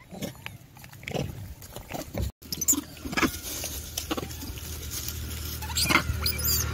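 Troop of rhesus macaques foraging for scattered grain on gravelly ground: scuffing and rustling as they pick at the dirt and move about, with short high squeals near the end. The sound cuts out for a moment about a third of the way in.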